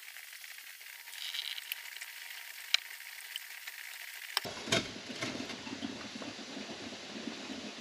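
A spatula scraping the last of the jam from a pan into a canning funnel over a glass jar, with a few sharp taps of the spatula against the pan.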